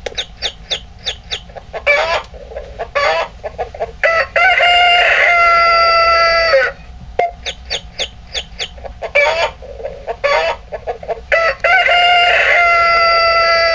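Egg-shaped novelty alarm clock going off with a recorded rooster call: a quick run of clucks, a couple of short calls, then a long cock-a-doodle-doo crow. The whole sequence plays twice.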